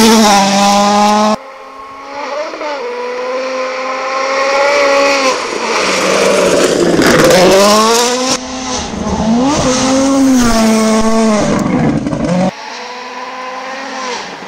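Ford Fiesta WRC rally car's turbocharged 1.6-litre four-cylinder engine driven hard on gravel, its pitch rising and dropping through gear changes, over the hiss of gravel thrown up by the tyres. Several separate passes follow one another, the sound breaking off abruptly about a second and a half in, near the middle, and near the end.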